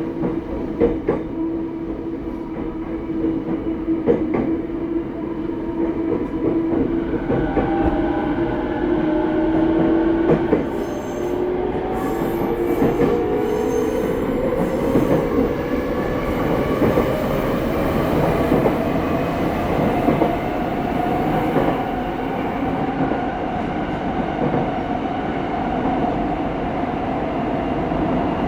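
Running sound of a TWR 70-000 series electric train: wheels on rail with scattered clicks from rail joints. A steady motor whine starts rising in pitch about ten seconds in as the train picks up speed, levelling off near the end.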